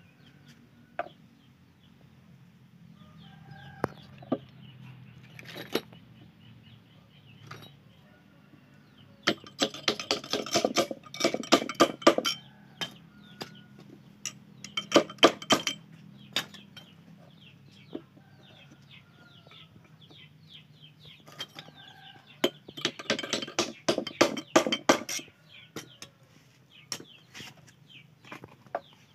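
Rapid clicking and knocking of wood against the metal tang as a drilled wooden handle block is worked onto a machete's tang. It comes in two dense bursts, about ten seconds in and again about twenty-two seconds in, with single knocks scattered between.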